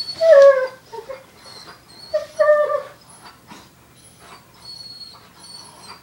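Black Labrador whining in two short cries that fall in pitch, about two seconds apart, during play. Fainter high squeaks follow near the end.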